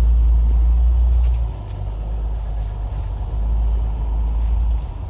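Jeep engine running as it works up a rutted dirt hill, a deep low rumble that is loudest for about the first second and a half and then eases a little.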